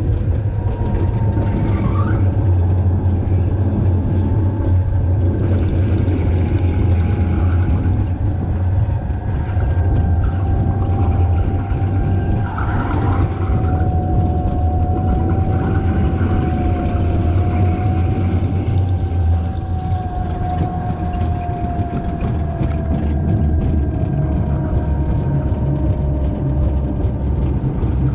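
Toboggan sled running fast down a stainless steel trough: a steady low rumble, with a thin whine that wavers and slowly sinks in pitch.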